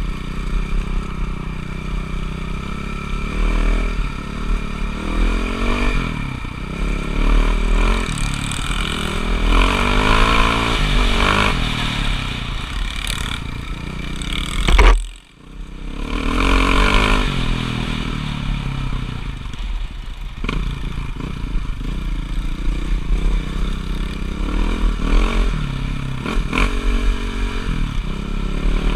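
Motocross dirt bike engine revving up and down repeatedly, its pitch rising and falling, over a steady low rumble. About halfway through, the sound peaks and then cuts out for a moment.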